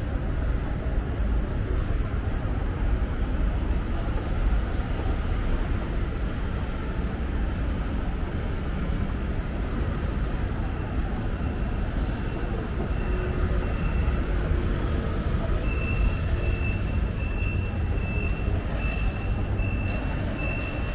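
Steady low rumble inside a railway station. A high-pitched electronic beep starts about halfway through and becomes a regular beeping, roughly one and a half beeps a second, near the end.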